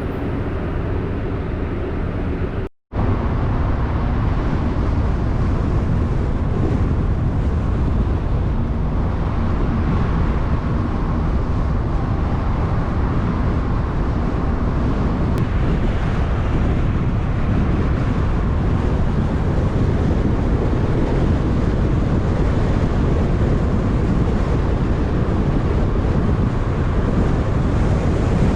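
Steady low rumble of wind buffeting the microphone, with a brief cut to silence just under three seconds in.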